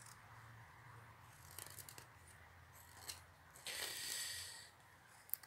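Carving knife slicing shavings off a small piece of alder wood held in the hand. There are a few faint scraping cuts, then one longer, louder cut about four seconds in, and a sharp click near the end.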